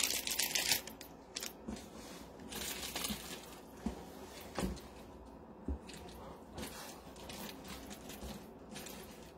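Brief crinkle of plastic packaging, then quiet shuffling with a scattered series of light knocks as packaged craft supplies are moved about and picked up.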